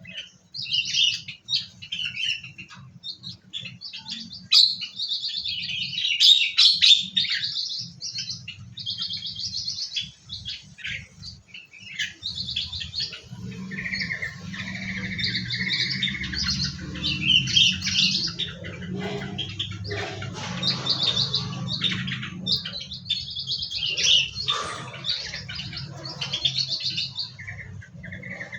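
Several small songbirds in an aviary chirping and twittering continuously in quick, overlapping bursts. A low steady hum runs underneath, stronger in the second half.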